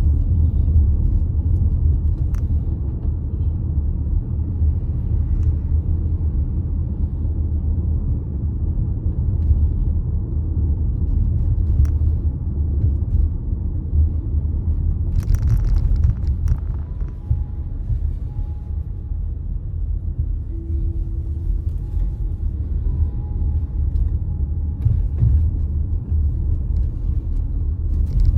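Steady low rumble of a car driving: engine and tyre noise, with a brief hiss about halfway through.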